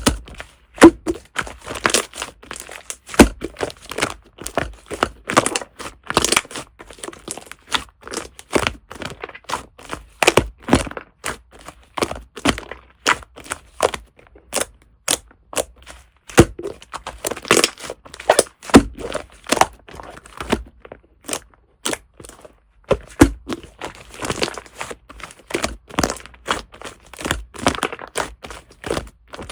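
Shaving-foam (fluffy) slime being squished and pressed by hand, giving a dense, irregular run of small crackling pops and clicks from trapped air.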